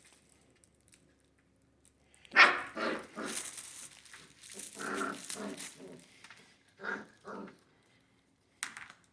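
Puppies growling and yapping as they play-fight: quiet at first, then a sharp yap about two and a half seconds in, a run of growls and yips for a few seconds, and a few short yips near the end.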